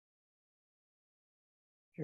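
Near silence, with no room sound at all; a man's voice begins right at the end.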